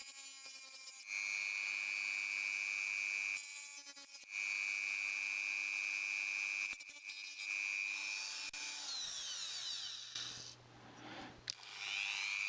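Dremel rotary tool with a small cutoff disc running with a steady high whine, cutting through the pins of a phone's SIM card reader. The whine breaks off a few times and its pitch slides about near the end.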